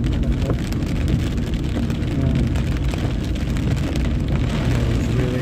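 Inside a car driving on a wet road in heavy rain: steady engine and tyre rumble with the hiss of tyres on water, and rain pattering on the roof and windscreen.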